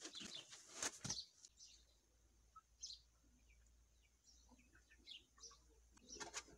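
Handling noise from a portable HPA compressor and its foam packaging being lifted and turned over: rustling and light knocks in the first second and again near the end, with a few faint high chirps in between.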